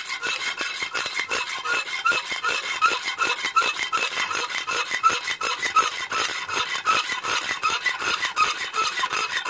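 Hand saw, most likely a hacksaw, cutting through the metal handle of a dinner fork, in quick, even rasping back-and-forth strokes of a little over two a second.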